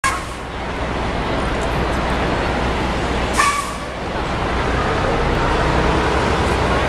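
Busy city street traffic noise: a steady rumble of passing vehicles, with one short, sharp hiss about three and a half seconds in.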